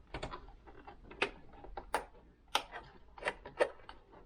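Irregular sharp clicks and knocks of hard plastic sewing-machine parts being handled, pried and pulled at by hand while a stuck part refuses to come free.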